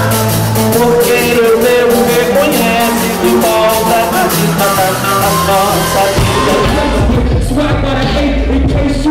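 Rock music with a singing voice over drums and guitar. About six seconds in it changes to a different piece with a heavier, deeper bass.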